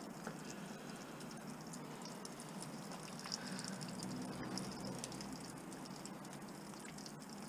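Faint rustling and light scuffing of footsteps moving through dry brush, with a few small ticks and crackles.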